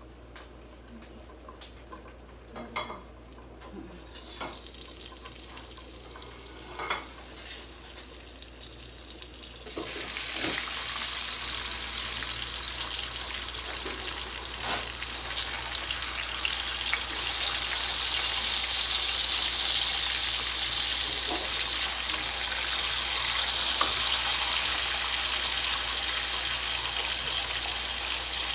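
Oil heating in a frying pan crackles faintly, with a few scattered clicks. About ten seconds in, slices of sweet ham go into the hot oil and it breaks into a loud, steady sizzle, which grows louder still as more slices are added.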